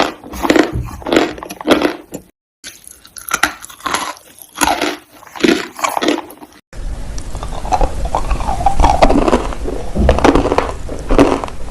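Dry clay crunching in close-up, in a steady run of crisp crunches. About two seconds in there is a brief silent gap, and about halfway through a steady low hum comes in under the crunching.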